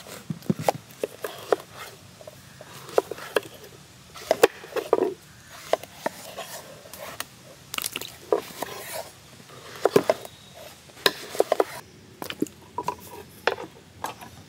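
Raw brinjals being cut open with a knife: irregular sharp cuts and snaps, a few a second, with soft squishing between them.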